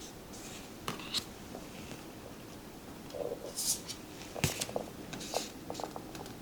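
Tarot cards being handled and looked through: soft sliding rustles and light taps of card stock, with a sharper tap about four and a half seconds in.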